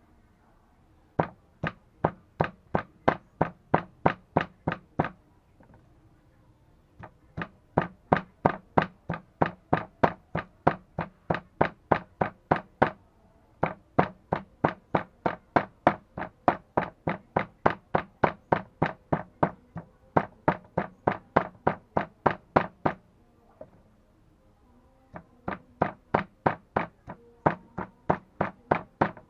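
Knife chopping on a wooden cutting board: steady strokes about three to four a second, in four runs of several seconds with short breaks between them.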